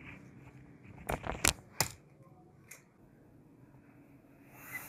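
A handful of sharp clicks and knocks from small hard objects being handled and set down on a workbench, bunched about one to three seconds in, the loudest near the middle.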